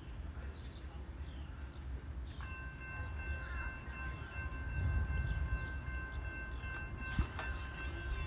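Approaching Amtrak passenger train. A low rumble builds, and from about two seconds in the train's horn sounds a steady, held chord of several high tones.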